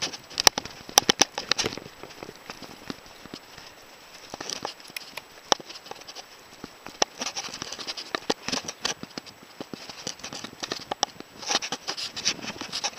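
Mountain bike riding over a bumpy dirt trail, with tyres crunching on the ground and the bike's frame and parts rattling and clicking over bumps in scattered clusters.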